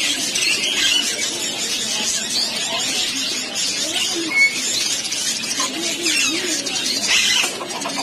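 Flock of budgerigars chattering and warbling together, a dense unbroken twitter with a louder chirp about four and a half seconds in.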